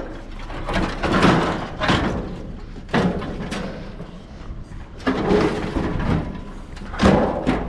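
Scrap being lifted, tossed and stacked onto a truck bed: a run of loud bangs and clattering knocks, about half a dozen spread over several seconds.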